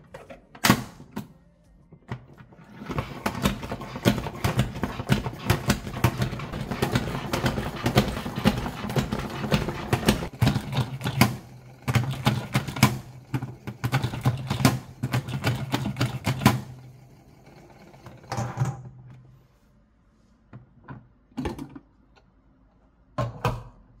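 OXO salad spinner 4.0 pumped by hand: rapid clicking from repeated pushes on the pump knob over a steady whir of the spinning basket, which then coasts down and stops about three-quarters of the way through. A few separate knocks near the end as the lid is handled.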